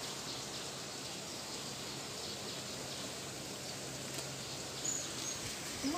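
Steady, even outdoor background hiss, with two faint short high chirps near the end.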